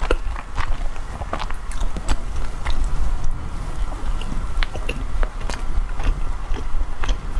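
Close-miked biting and chewing of soft matcha bread: irregular mouth clicks and smacks over a low steady hum.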